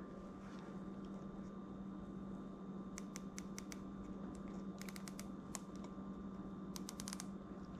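Faint, sharp little clicks in three quick runs of several each, over a steady low hum: the detent clicks of a red dot sight's adjustment screw being turned.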